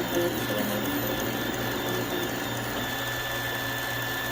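3D printer running a print, its stepper motors whirring in short pitched moves that change pitch every fraction of a second over a steady hum.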